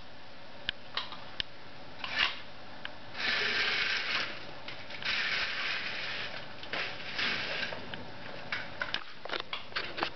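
Vertical blind slats rustling and clacking as they are pushed aside, in three longer scrapes in the middle with scattered clicks around them, over a steady hiss of rain.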